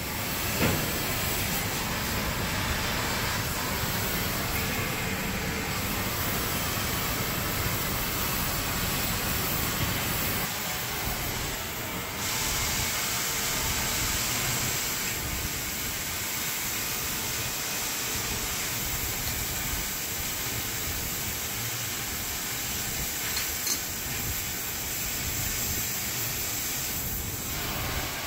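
Steady rushing background noise of a workshop, with a low rumble under it, turning brighter and hissier about twelve seconds in; a few faint clicks stand out.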